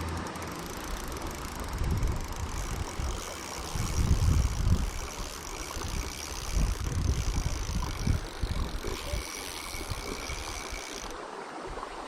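Running stream water with gusts of wind rumbling on the microphone.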